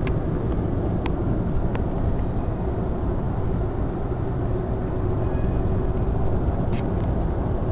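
Steady rumble of a car in motion, heard from inside the cabin: tyre, engine and wind noise, with a few faint clicks.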